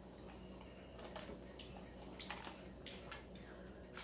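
Quiet room with a few faint, short clicks at irregular intervals.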